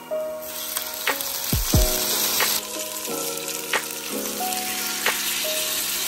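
Oil sizzling in an enamelled cast-iron pan of frying sausage and shallots, growing louder about half a second in as canned mushrooms are tipped in; raw rice is then poured into the pan. Light background music plays underneath.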